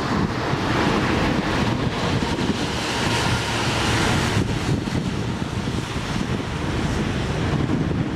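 Wind buffeting the microphone, over a steady rushing noise that swells for a few seconds early on.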